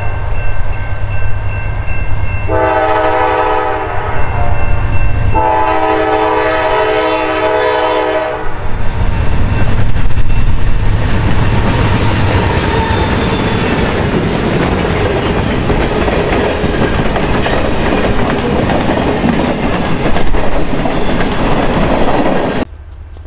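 A CSX GE C40-9W diesel freight locomotive sounds its multi-note horn: the tail of one blast, a shorter blast, then a long blast of about three seconds. The locomotives then pass close by with a loud engine and rumble, followed by freight cars rolling past with clattering wheels. The sound cuts off abruptly near the end.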